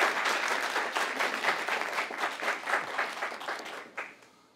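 A seated audience applauding, a dense patter of many hands clapping that thins out and dies away near the end.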